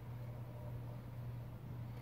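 Steady low hum over a faint even hiss, with no distinct clicks or knocks.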